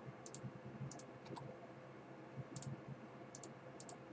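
Faint clicks of a computer mouse and keyboard, about six scattered ones, several in quick pairs, over a low steady room hum.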